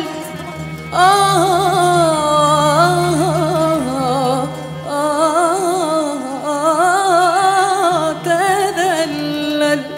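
Live Arabic ensemble music: a female vocalist sings long melismatic phrases with heavy vibrato and trills, breaking briefly twice, over a steady low sustained note from the accompaniment.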